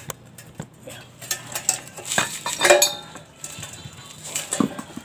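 Metallic clinking and clattering with several knocks, from a wire-spoked trike side wheel being handled and laid down on concrete. A ringing clank about two and a half seconds in is the loudest.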